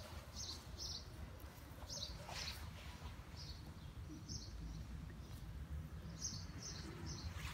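Small birds chirping in short, high notes at irregular intervals, over a steady low rumble of outdoor background noise.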